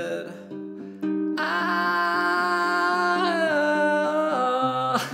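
A man singing over a classical guitar he strums himself. After a short sung phrase he holds one long note that dips in pitch partway through, with the guitar chords continuing underneath, and there is a sharp strike near the end.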